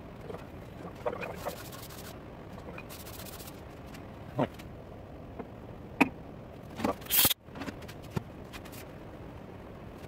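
Sped-up workshop handling noises: a few short knocks, clicks and scrapes as an aluminium engine crankcase and lathe tooling are handled, over a steady background hum. The loudest moments are a sharp click about six seconds in and a brief hissing scrape just after that cuts off abruptly.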